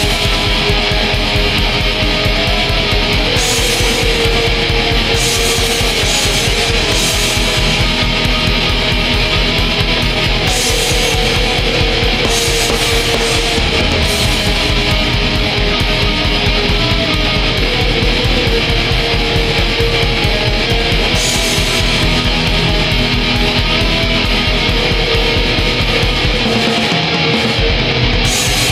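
Depressive black metal: a dense wall of distorted electric guitar over fast, continuous drumming, at a constant loud level.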